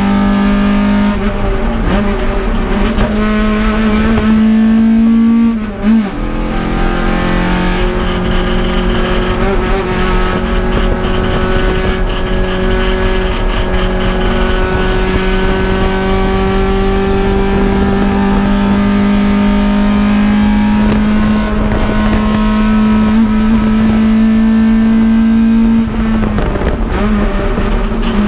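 Toyota AE86 Corolla's 4A-GE twin-cam four-cylinder engine pulling hard at high revs. The pitch falls sharply about six seconds in as the revs drop, then climbs slowly and steadily under long acceleration, dipping briefly once more near the end.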